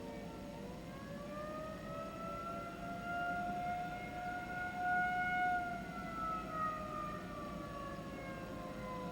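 Several civil defense sirens, 2001 models among them, sounding together in a siren test, their overlapping tones slowly rising in pitch and then falling, swelling loudest about halfway through.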